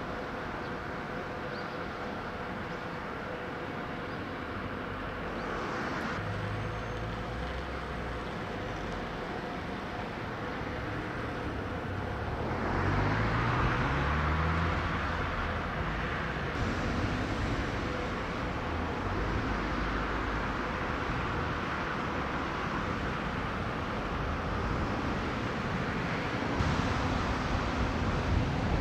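Outdoor traffic and machinery noise with a faint steady hum; a vehicle engine rises in pitch about halfway through, and the noise grows louder again near the end.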